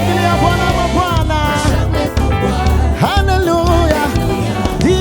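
Upbeat Swahili gospel praise song: a worship band with bass and keyboard backing sung vocals, the voices rising and falling in long sung phrases.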